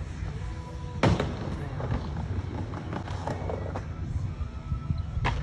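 Skateboard wheels rumbling on a Skatelite-surfaced vert ramp, with a sharp clack about a second in and lighter knocks later.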